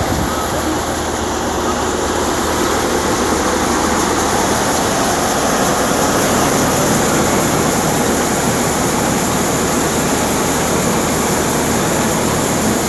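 A New Malwa tractor-driven thresher running at full working speed while threshing pearl millet (bajra): a loud, steady mechanical din of the machine and its driving tractor engine.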